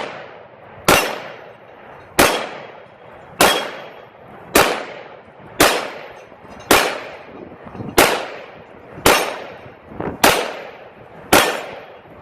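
A CZ P10-C 9mm pistol fired in slow, evenly spaced single shots, about one a second, ten shots in all. Each shot is followed by a short ringing decay.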